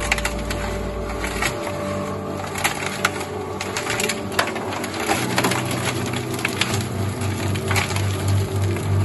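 Electric cement mixer running, its drum churning a 4:1 ballast-and-cement concrete mix with a steady motor hum and a constant gritty rattle of stones. Near the end the drum is tipped and the concrete slides out into a wheelbarrow.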